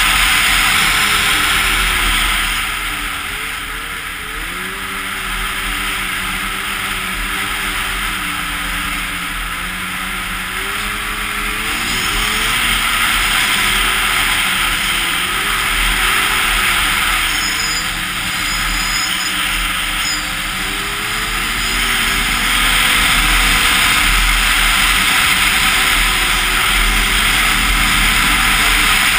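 Arctic Cat Crossfire 1000 snowmobile's two-stroke twin engine running at speed, its note rising and falling with the throttle, under a steady rushing hiss on a helmet-mounted microphone. It eases off for several seconds a few seconds in, then builds again.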